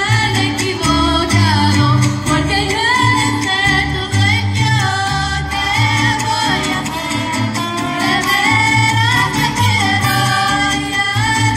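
Mariachi ensemble performing live: women singing a gliding, ornamented melody into microphones, backed by violins and strummed guitars over a repeating bass line.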